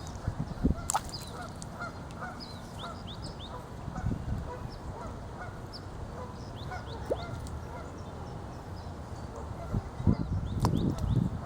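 Geese honking in a series of short calls, with small high chirps from other birds; the calls grow louder and more frequent near the end.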